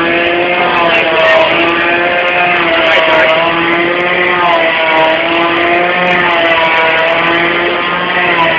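Chainsaw engine running at high revs, its pitch sagging and recovering every second or two.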